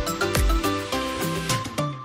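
Background music: a pitched melody over a steady drum beat. The beat thins out in the second half, and the music drops away for a moment near the end before coming back in.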